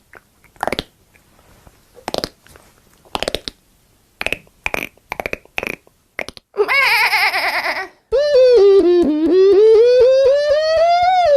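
A man's mouth and voice sound effects: a run of short, sharp clicks and pops, then a burst of hiss with a wobbling whistle-like pitch, then a long sung tone that dips and then slides steadily upward.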